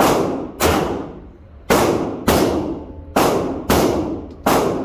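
A string of gunshots at a shooting range: about eight sharp reports in under five seconds, unevenly spaced, each with a reverberating tail.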